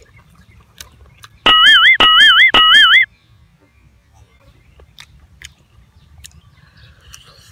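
A loud warbling, whistle-like electronic tone, repeated three times in quick succession for about a second and a half: an edited-in sound effect. Faint chewing clicks come before and after it.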